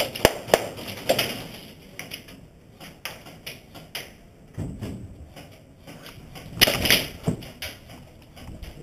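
Irregular sharp clicks and knocks of airsoft play, shots and BB hits, several close together near the start and a louder rough burst about seven seconds in.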